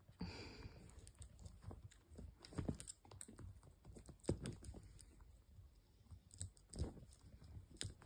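Irregular light clicks and taps of a white-bellied caique's beak working a small plastic toy figure, with a few louder knocks of the toy scattered through.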